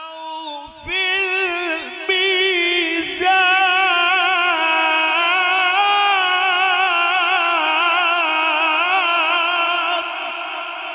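A man's voice in Quranic recitation (tilawat), holding one long, high, ornamented note that quavers up and down, amplified through a microphone. The note comes in about a second in and eases off slightly near the end.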